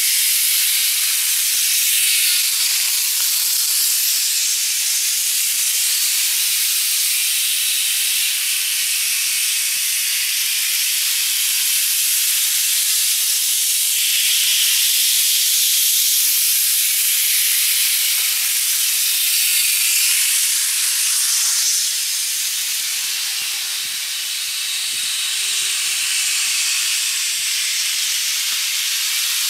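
TOMIX N-scale model train, an electric locomotive hauling passenger cars, running on plastic elevated track: a steady, high hissing whir from the motor and rolling wheels, a little quieter from about 22 seconds in.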